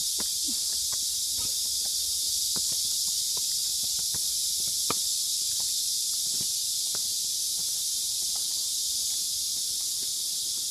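Steady, high-pitched drone of a cicada chorus in the trees, with scattered footsteps on stone paving.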